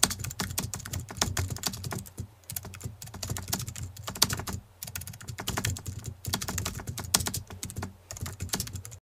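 Computer keyboard typing sound effect: rapid runs of key clicks with brief pauses between them, ending abruptly near the end.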